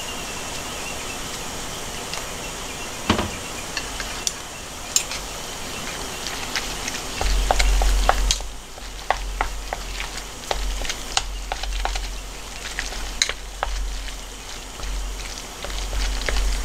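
Long wooden chopsticks mixing sliced raw pork in a small metal pot, with quick irregular clicks of the chopsticks against the pot's side that grow busier about halfway through. A few dull bumps, the loudest about halfway in, come with the stirring.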